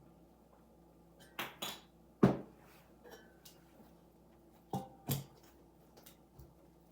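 A few separate knocks and clinks of kitchen dishes and utensils being handled. There is a pair, then the loudest single knock about two seconds in, then another pair about five seconds in.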